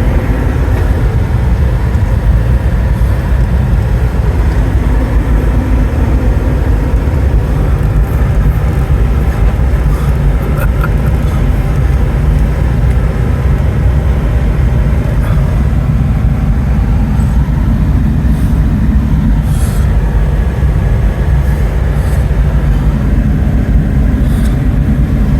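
Steady low rumble of a moving vehicle: engine and road noise with no breaks.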